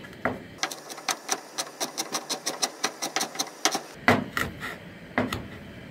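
Cleaver slicing kaffir lime leaves into thin shreds on a wooden cutting board. Quick knife strikes come about six a second, then a few louder, slower chops near the end.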